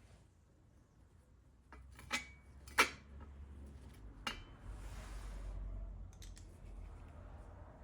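Metal parts and tools clinking during motorcycle engine assembly: three sharp clinks, the second loudest, one leaving a short ring, followed by a softer scraping noise.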